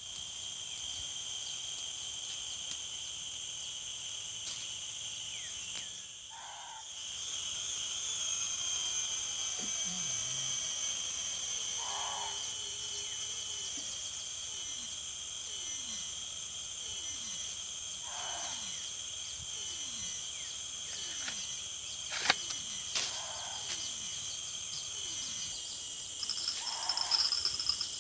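Night chorus of crickets and other insects, a steady high-pitched trilling. Over it, a short lower call comes about every five or six seconds, and a string of quick downward-sliding chirps is heard in the middle.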